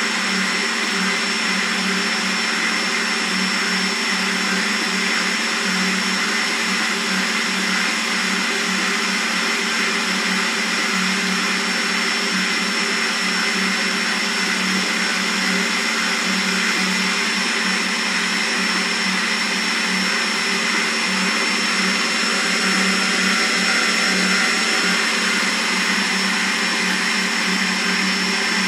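Kogan stand mixer running at a steady speed, its motor giving a constant hum with a high whine over it, as it beats butter and sugar in its stainless steel bowl.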